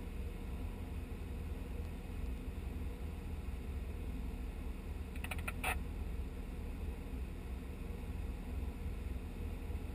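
Muffled, steady low rumble of an off-road 4x4 vehicle running, with a short cluster of sharp clicks about five and a half seconds in.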